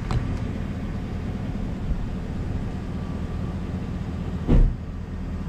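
Idling vehicle engine: a steady low hum. There is a light click right at the start and one dull thump about four and a half seconds in.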